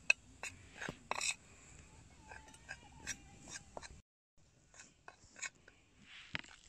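Metal spoon stirring a spice-and-oil paste in a glass plate: short irregular clicks and scrapes of the spoon against the glass.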